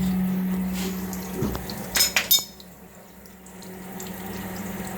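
Water running from a tap, with a few sharp clinks about two seconds in. The flow then drops off and comes back more quietly.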